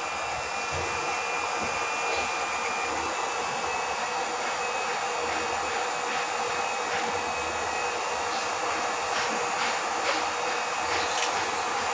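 STEC 180-watt 12 V DC water pump running with a steady whir while it is being primed and has not yet started lifting water. A few faint clicks come in the second half.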